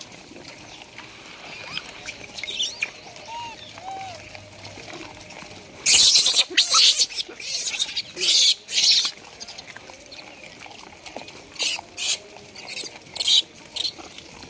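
A troop of rhesus macaques feeding and jostling at a crate of cucumbers. Faint short calls come in the first few seconds. From about six seconds in there is a run of short, loud, harsh bursts, and a few more come near the end.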